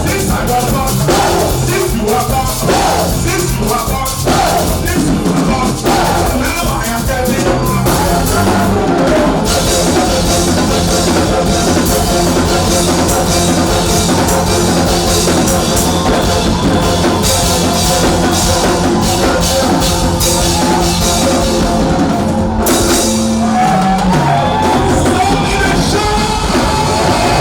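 Loud band music with a drum kit and singing.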